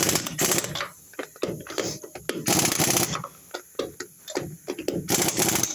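Pneumatic impact wrench run by an air compressor's tank, rattling in three short bursts of about half a second each, roughly two and a half seconds apart, with clicks of tool handling between.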